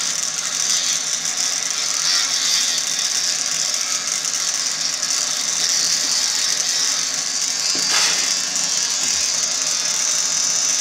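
Battery-powered electric toothbrush buzzing steadily while brushing teeth, with a rattly whir, and a single sharp knock about eight seconds in.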